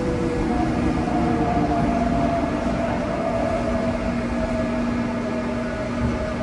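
Subway car cabin noise while the train is running: a steady rumble of wheels on rail with a motor whine that falls slowly in pitch.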